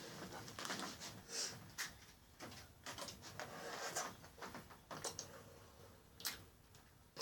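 Faint scattered clicks and crinkly rustles of a small sweet packet and a plastic cup being handled close to the microphone.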